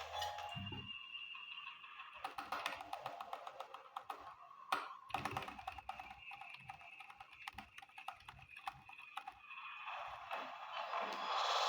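Typing on a compact mini keyboard: a quick, uneven run of light key clicks, with one louder click about halfway through.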